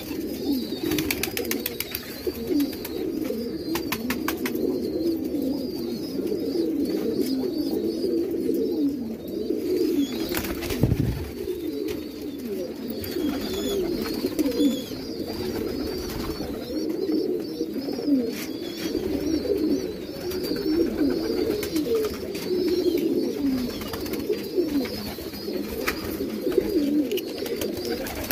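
Many domestic pigeons cooing at once: a continuous chorus of overlapping low, warbling coos.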